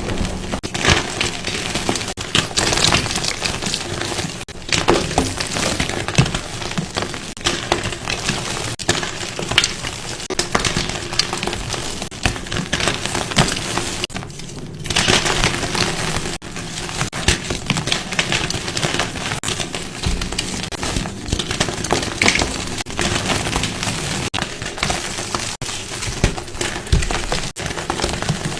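Blocks of gym chalk being crushed: continuous crisp crunching and crackling, with many small sharp cracks and a few brief breaks.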